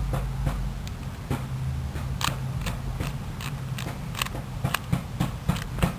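Plastic Rubik's Cube layers being turned by hand in quick succession: irregular clicking and clacking, several clicks a second, coming faster toward the end.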